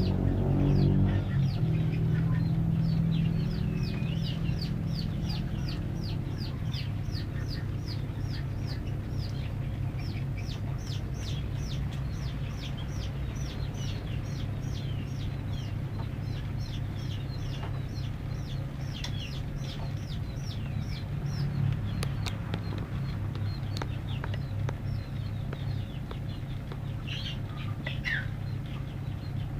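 Birds, likely chickens or chicks, peeping in a rapid string of short, high, falling chirps, several a second, over a steady low hum.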